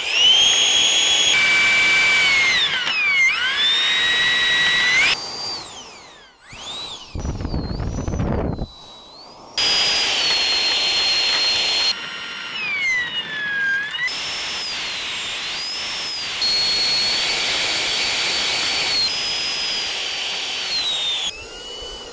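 Electric ducted fan of an RC Harrier jet model whining as it taxis, its pitch dipping and rising with the throttle across several short cuts. Around the middle the whine drops away for a few seconds of low rushing noise.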